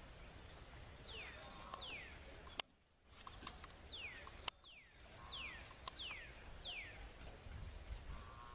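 Faint, high, falling chirps of a bird calling over and over, about seven times, each a quick downward sweep. Two sharp clicks come about a third of the way in and about halfway through.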